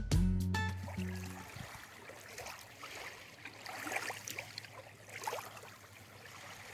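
Background music fades out over the first second and a half, leaving running water: a steady trickling and splashing wash with small irregular splashes.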